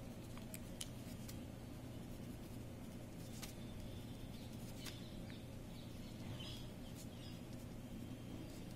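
Faint scratching and light ticking of a pen writing on a sheet of paper, in short irregular strokes over a steady low hum.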